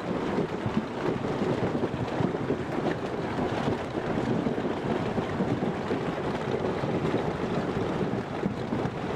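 Heavy hail pounding down: a dense, steady clatter of countless hailstones striking hard surfaces.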